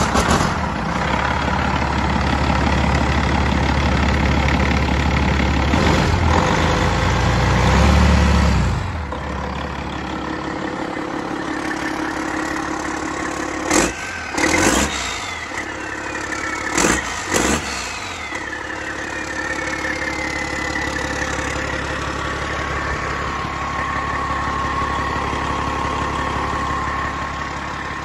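Detroit Diesel Series 60 12.7-litre DDEC IV inline-six diesel engine on a run stand, just cold-started and running: loud for about the first nine seconds, then settling quieter and steady. In the quieter stretch come four sharp knocks, followed by a whistle that falls slowly in pitch.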